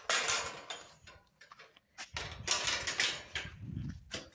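Hook-and-eye latch and corrugated metal lid of a wooden chicken tractor being handled and lifted open: scraping, rattling metal in two bursts, one at the start and a longer one about two seconds in, with scattered clicks between.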